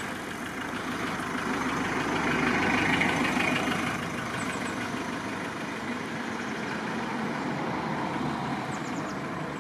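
Steady noise of a motor vehicle running along the road, swelling to its loudest about three seconds in.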